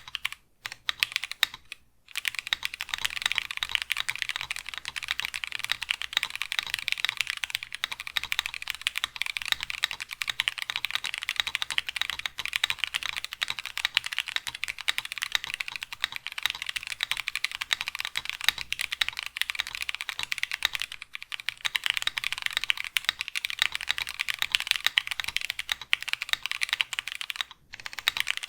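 Mechanical keyboard fitted with TTC Watermelon Milkshake tactile switches (nylon housing, POM stem, factory-lubed) being typed on fast and continuously. The typing breaks off briefly about two seconds in and again near the end.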